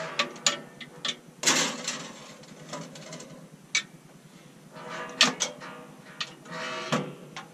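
A handful of separate metal clanks and clicks from a boat's galley stove oven as a dish is slid in and the oven door and rack are handled, with short rattles between the knocks.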